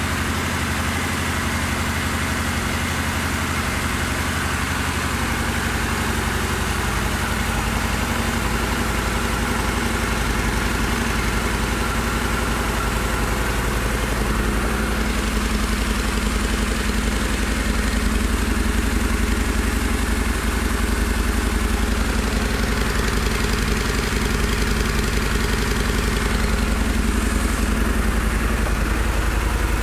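2003 Harley-Davidson V-Rod's liquid-cooled 60-degree V-twin Revolution engine idling steadily and evenly, a little louder from about halfway through.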